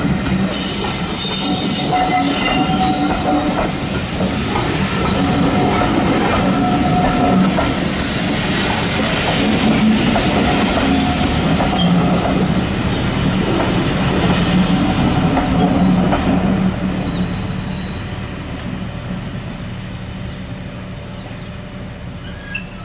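Railway passenger coaches rolling past close by, their wheels squealing on the rails with several held tones. The sound fades over the last few seconds as the end of the train moves away.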